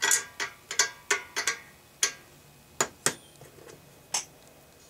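Steel combination wrenches clinking against the carburetor's mounting nut and on the bench as sizes are tried: about ten sharp, irregular metallic clicks, some ringing briefly.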